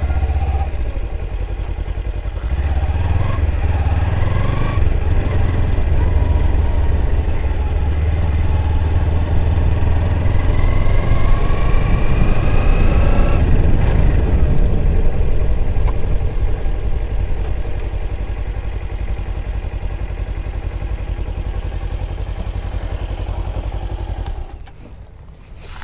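Kawasaki Ninja 300's parallel-twin engine running under way at low speed, rising in pitch twice as it pulls away and picks up speed, then dropping back to a lower steady note. It is switched off near the end.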